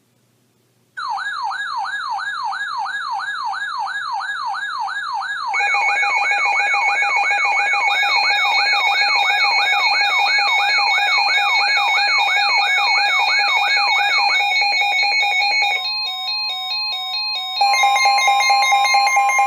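Electronic weather-alert tones: a siren tone wailing up and down about two and a half times a second, joined after about five seconds by a steady rapidly pulsing alarm tone. The wail stops near the end, leaving a single steady tone under a louder pulsing alarm, heralding a severe thunderstorm warning broadcast.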